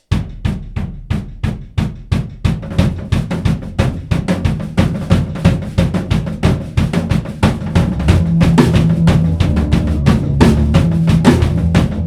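Rock band playing, opening on a drum-kit beat of bass drum and snare; sustained low bass and guitar notes come in about eight seconds in and the music gets louder.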